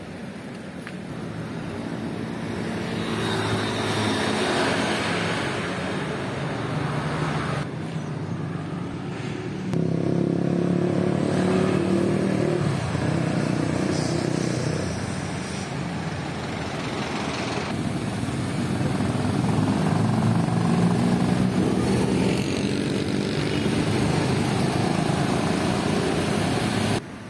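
City street traffic, mostly small motorcycle engines running and passing by, the engine sound swelling and fading as they come and go.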